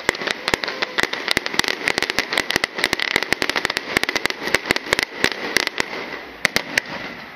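Aerial fireworks going off: a dense, rapid run of sharp pops and crackles, many a second, thinning out near the end.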